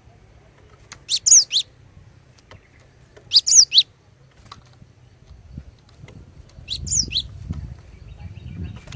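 Female cinereous tit (glatik batu) calling: three short bursts of quick, sharp, down-slurred notes, a couple of seconds apart. A low rumble sits under the later part.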